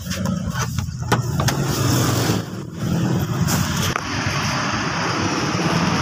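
Steady low hum of a car, with a few knocks and clatter in the first second or so as the door is opened and someone climbs out.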